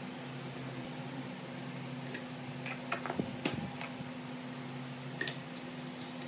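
A handful of light clicks and taps of small plastic and metal parts, bunched about two to four seconds in with one more near the end, as a recoil starter's pulley and ratchet parts are handled. A steady low hum runs underneath.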